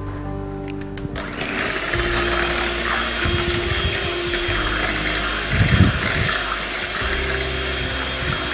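Anex electric hand mixer switched on about a second in, its beaters running steadily through egg, sugar and red food-colour batter in a glass bowl, with a thin steady whine.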